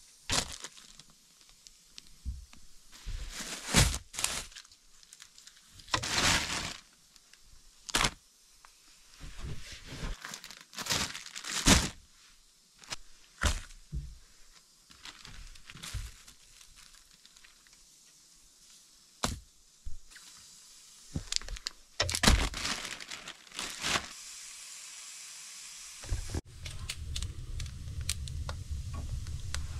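Plastic grocery bags and packaging crinkling and rustling in a series of irregular bursts as food items are handled and set down. Near the end a steady low rumble takes over, a wood fire burning in a stove.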